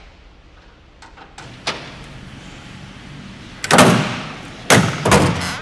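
A few light clicks, then a Chevette's hood slammed shut with one loud bang that rings out for about a second, followed by two more sharp thuds near the end.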